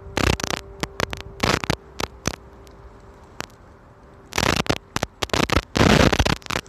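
Loud, irregular crackling bursts of noise. Beneath them the lingering hum of a church bell fades out about four seconds in.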